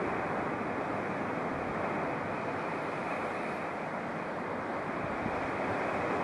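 Choppy sea churning and washing, a steady rushing noise mixed with wind.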